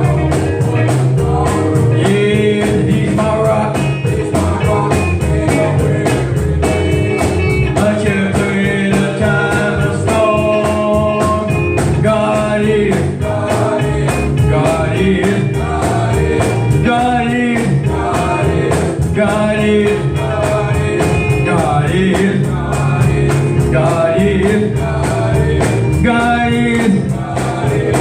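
Gospel song: a singer's voice over a band playing with a steady beat.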